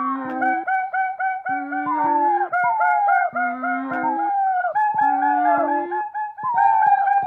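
Experimental electronic music played live: a fast repeating figure of short pitched notes over a low line that steps upward in short phrases, with honk-like tones gliding downward through it.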